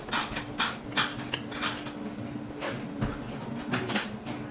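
Metal utensils clinking and scraping against dishes on a Korean barbecue table: about six short, sharp clinks spaced irregularly, over a faint steady hum.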